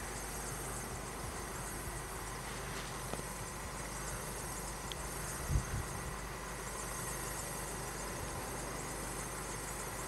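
Steady low hum and hiss of car engines idling at a closed level crossing, with a faint steady tone above it. A brief low thump about five and a half seconds in.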